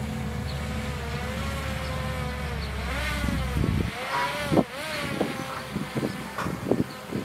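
Caterpillar 320C L long-reach excavator working: diesel engine drone under a hydraulic whine whose pitch bends up and down as the arm moves. A little past halfway the low drone drops away, and several sharp knocks follow.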